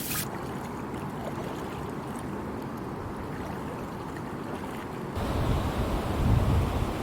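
Steady rush of flowing river water from a released sluice. About five seconds in it turns suddenly louder and fuller, with low wind rumble on the microphone.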